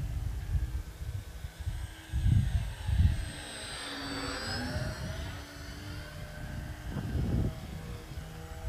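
Small RC pattern plane's motor and propeller whining as it flies past low and close, its pitch dropping as it passes about halfway through. Wind buffets the microphone in gusts.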